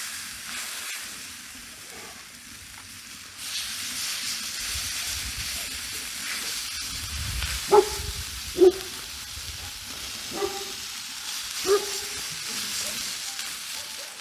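Pork chops sizzling in a hot cast iron pan. The sizzle grows louder about three and a half seconds in. Four short ringing clinks in the second half stand out above it.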